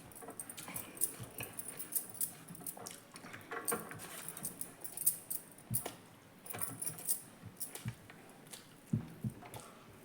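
A person eating close to the microphone: irregular chewing and mouth clicks, several a second.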